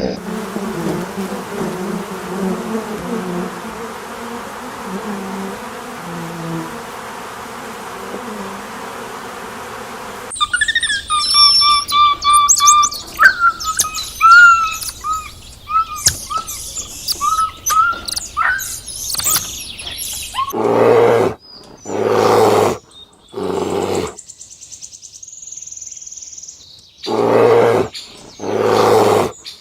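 A run of animal sounds: a steady, noisy stretch, then birds chirping and twittering for about ten seconds, then a series of loud animal calls, each about a second long.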